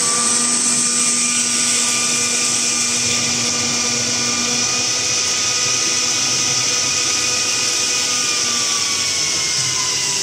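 Stainless-steel vacuum emulsifier homogenizer mixer running, its motors giving a steady high whine over a loud hiss as liquid churns and splashes in the vessel. The whine dips in pitch near the end.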